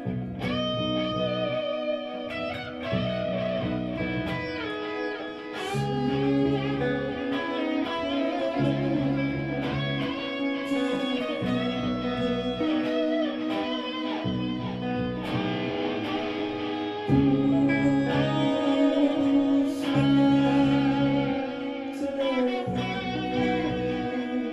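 Live band music led by guitar, with a bass line changing note about once a second.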